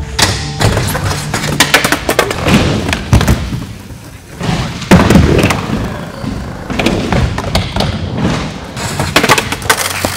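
Skateboards rolling on wooden ramps and a concrete floor, with repeated sharp clacks and thuds of boards landing and hitting; the loudest hit comes about five seconds in.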